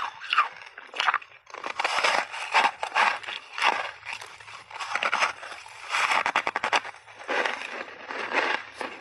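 Frozen shaved ice coated in milk powder being bitten off in big bites and chewed: a dense, irregular run of crisp crunches.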